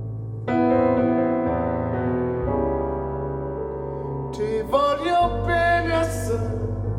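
Piano playing slow sustained chords, joined about four and a half seconds in by a male voice singing a held, wavering phrase.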